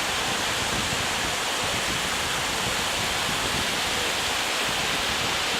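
Steady rushing noise of sea surf on a beach, even and unbroken, with a flickering low rumble underneath.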